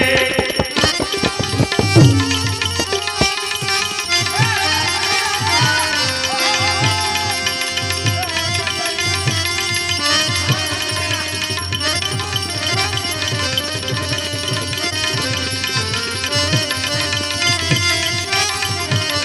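Instrumental interlude of a Gujarati devotional bhajan: tabla keeping a steady rhythm under a melody instrument playing sliding, ornamented phrases. A flurry of quick drum strokes comes in the first two seconds.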